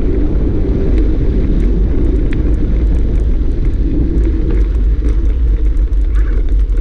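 Mountain bike rolling down a dirt trail: a steady low rumble of wind on the microphone and tyres on dirt, with scattered light clicks and rattles from the bike.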